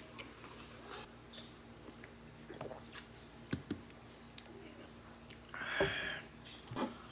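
Close-up eating sounds: scattered wet mouth smacks and chewing as roast chicken is torn apart by hand and eaten, with a drink from a plastic bottle. About six seconds in comes a louder breathy noise lasting under a second.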